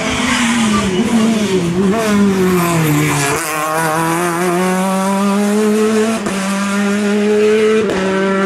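Rally car engines at high revs: the pitch falls steadily over the first three seconds as the car slows, then changes abruptly to a Renault Clio rally car's engine holding high revs and slowly rising, broken briefly twice.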